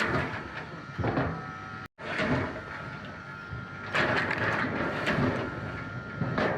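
Wood-processing machinery running steadily, with louder surges about a second in, near the middle and near the end as wood is worked. The sound drops out briefly just before two seconds in, where one clip cuts to the next.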